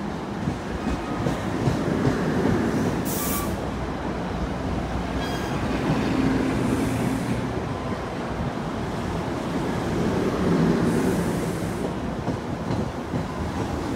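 NJ Transit single-level passenger coaches rolling past along the platform, with a steady rumble of wheels on rail. A short, sharp high hiss cuts in about three seconds in, and fainter hissing comes and goes later.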